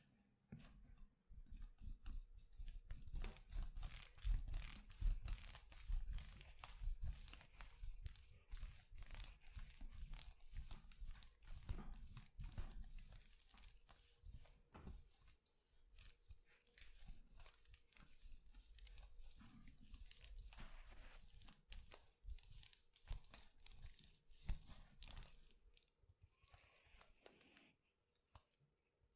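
Hands rubbing and scratching over hair and skin during a massage, close to the microphone: a dense, irregular crackling rustle of many small clicks with some dull low thuds, dying away near the end.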